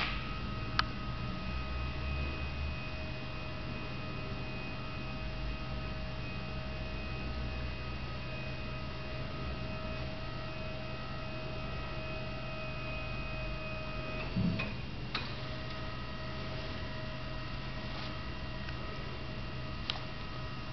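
Steady electrical hum with a high whine over it. The whine cuts out for about a second, with a soft knock, two thirds of the way through, then resumes; a few faint ticks.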